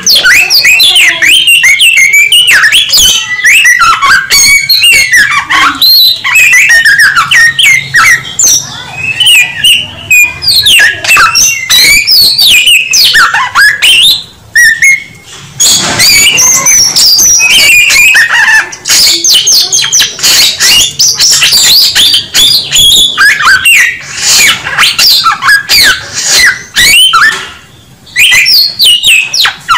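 A Samyong songbird singing loudly in a fast, varied stream of short whistled and chirped notes that glide up and down. The song breaks off briefly about halfway through and again near the end.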